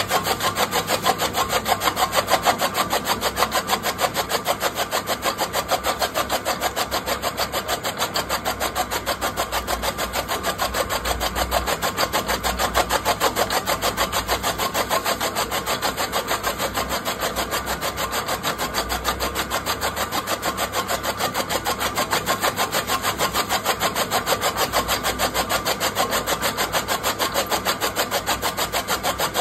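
Electric chaff cutter running, its flywheel blades chopping green fodder stalks in a fast, even rhythm of cuts.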